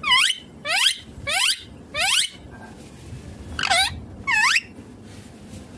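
Ringneck parakeet calling: six sharp calls, each dipping and rising in pitch, four in a row about every half second, then after a pause two more.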